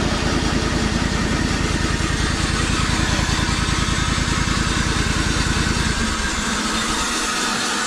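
Sawmill engine running steadily with a fast, regular low pulse and a steady whirring hiss. About six seconds in, the low pulse drops away while the hiss carries on.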